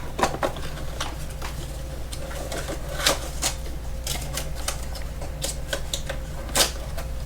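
Irregular light clicks and taps of a cardboard tool box and its paper inserts being handled, over a steady low hum.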